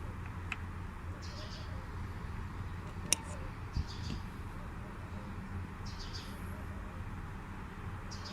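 Short high chirps, bird-like, repeating every couple of seconds over a steady low hum, with a sharp click about three seconds in.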